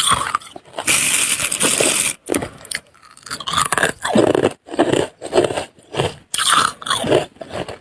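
Freezer frost being eaten close to the microphone: a long scrape about a second in, then repeated crunching and chewing bites of the frost.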